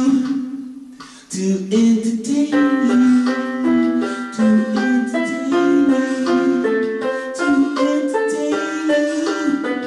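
Electronic keyboard playing a tune of held notes that step up and down in pitch, fading out briefly about a second in and then starting again.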